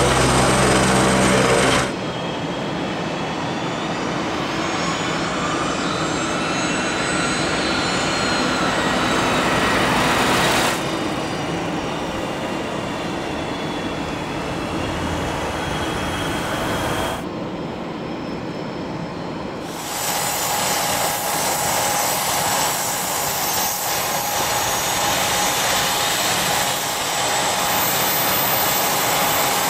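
Business jet turbofan engines running on the ground: a steady turbine whine over a rushing hiss, broken by several abrupt edits. In the first long stretch the whine's pitch glides up and down.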